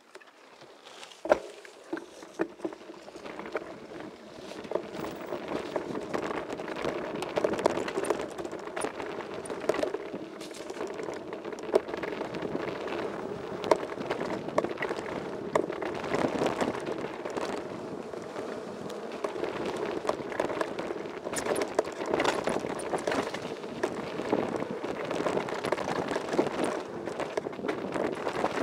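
Downhill mountain bike rolling fast over a loose gravel trail. The tyres make a continuous crunching hiss, with frequent rattles and knocks from the bike over stones and bumps. It builds up over the first few seconds as speed picks up, with one sharp knock about a second in.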